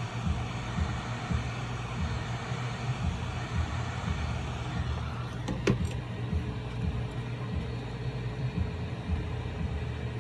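Heat gun running, a steady low hum with an airy rush of blown air, warming the phone's glass to soften its adhesive. A click a little over halfway, after which the rush lessens and a steadier hum with a faint held tone is left.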